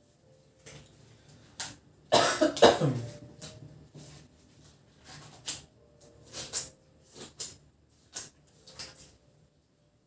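A short burst of coughing about two seconds in, followed by a string of brief light clicks and rustles.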